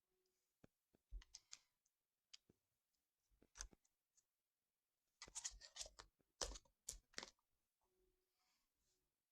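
Faint scattered clicks and knocks of a spoon against a jar as food is spooned in, coming in a few short clusters, the busiest about five to seven seconds in.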